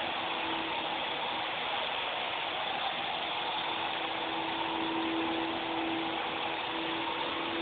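Small battery-powered toy helicopter in flight: its motor and rotor whir steadily with a humming tone that comes and goes, strongest a little past the middle.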